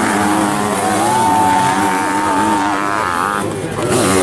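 Sidecar motocross outfits' engines revving hard as they pass. One engine climbs in pitch about a second in, holds high, and falls away near three seconds.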